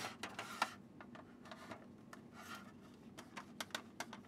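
Light clicks and scrapes of a screwdriver working at a screw in the metal side panel of a computer memory expansion unit, mixed with the hands handling its plastic-and-metal case; the clicks come in a quicker run near the end.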